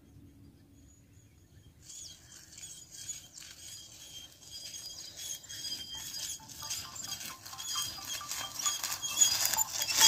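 A long-handled spiked hand tool scraping and crackling through dry, crusted field soil along a sown ridge, with footsteps, in a rapid run of scrapes. It starts about two seconds in and grows louder as it comes closer. The tool is breaking the hard surface crust over cotton seed so the seedlings can come up.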